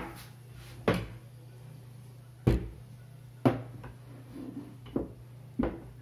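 Five sharp knocks and clunks, a second or so apart, as a metal scooter rear-suspension linkage assembly with its shock absorber and a metal rod are handled and set down on a wooden table. A low steady hum runs underneath.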